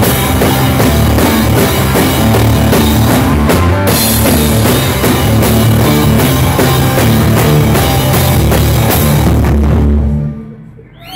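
Live rock duo playing loud, distorted electric guitar over a pounding drum kit. The song ends with a final hit about ten seconds in, and the sound dies away quickly.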